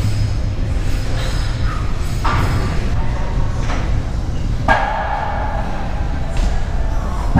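Weight-room ambience: a steady low rumble, broken by two sharp metallic clanks of gym weights, about two and five seconds in, each ringing briefly.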